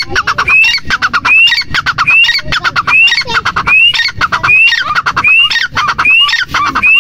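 Grey francolin calling: a phrase repeated about every 0.8 seconds, each a rising whistled note followed by a quick rattle of short notes.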